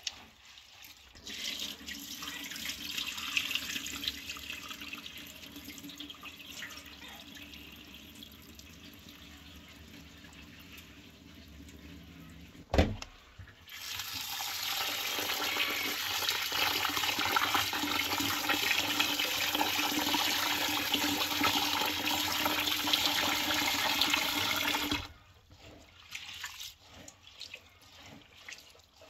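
Rice being washed by hand in a plastic bowl under a running tap in a stainless steel sink: water swishing and splashing, one sharp knock a little before halfway, then a loud steady stream from the tap for about eleven seconds that stops suddenly, followed by more splashing of hands in the water.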